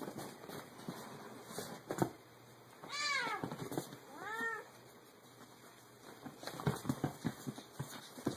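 Cat meowing twice, each call rising then falling in pitch, about three and four seconds in. A run of light taps and scuffles follows near the end.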